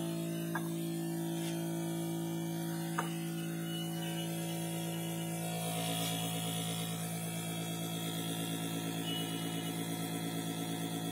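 Small electric motor spinning a homemade grinding disc, a steady multi-tone hum. About halfway through the tones shift and the hum takes on a fast, regular pulsing. Two light ticks in the first few seconds.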